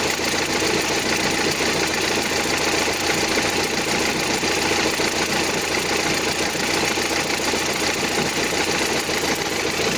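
Renault Scénic III 1.6 dCi 130 four-cylinder diesel engine idling steadily with a busy clatter, the strange idle noise that the owner suspects may come from a part that seems to have play.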